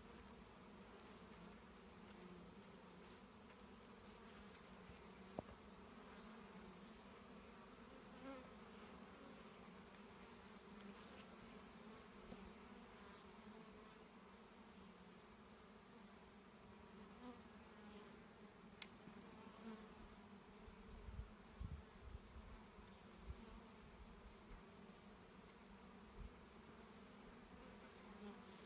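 Faint, steady buzzing of a honey bee swarm as it is moved into a hive, with a few small knocks and low bumps.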